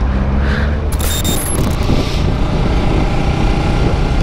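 Bajaj Rouser 200NS single-cylinder engine running as the motorcycle is ridden, with steady wind and road noise. A brief high-pitched hiss comes about a second in.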